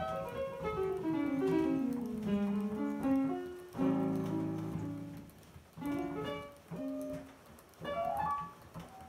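Roland JV-90 synthesizer's piano sound, played mechanically by an Aeolian push-up piano player reading a paper roll. Fast descending runs of notes come first, then a loud full chord about four seconds in, then short rising runs broken by brief pauses.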